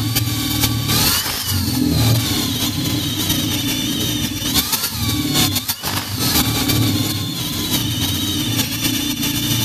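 DeWalt cordless drill boring a long bit down into a log, the motor running continuously with its speed rising and falling as the trigger is squeezed and eased, and a few brief let-offs.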